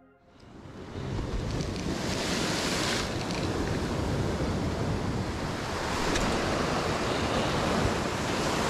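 Ocean surf breaking and washing over a rocky shore, with wind buffeting the microphone. It fades in over the first second and then holds as a steady rush.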